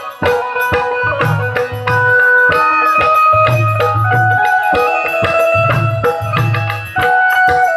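Instrumental passage of Gujarati santvani folk-devotional music: a melody instrument holding and stepping through notes over a steady beat of hand drums, with deep drum strokes in repeated clusters and sharp jingling percussion strokes.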